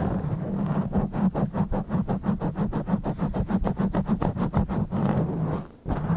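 Fingers scratching and rubbing directly on an uncovered microphone, a rough rumbling scrape in fast, even strokes of about five or six a second, which break off briefly near the end.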